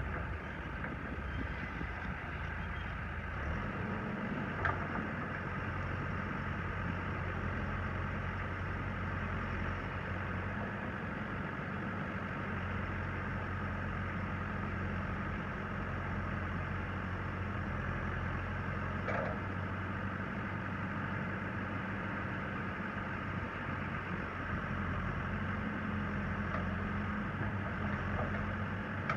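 Caterpillar 416C backhoe loader's diesel engine idling steadily.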